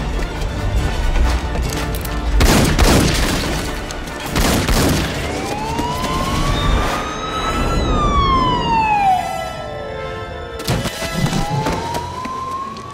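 Police siren wailing in one long rise and fall, then rising again, over a film score with two heavy booming hits in the first half.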